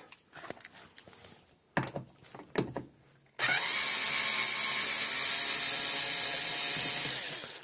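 A few light clicks and knocks of handling, then a power screwdriver spins up quickly and runs steadily for about four seconds, backing out a Torx screw from a dishwasher's bottom plate.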